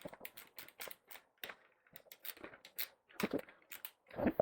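Irregular light clicks and taps of tools and bicycle parts being handled during work on a bike.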